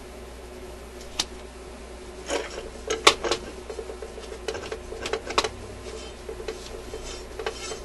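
Clicks and knocks of a record player's platter being set down onto its spindle and handled, the loudest knock about three seconds in, with a steady faint hum underneath.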